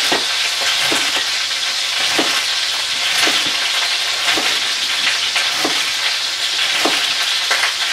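Wild boar leg searing in oil in a roaster, a steady sizzle. Over it, a chef's knife chops through celery stalks onto a wooden cutting board, about once a second.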